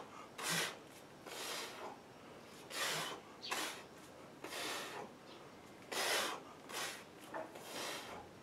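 A man's sharp, forceful breaths, one hissing exhalation with each kettlebell rep, about ten in eight seconds and spaced unevenly. The breaths come while he swings and snatches a 32 kg kettlebell.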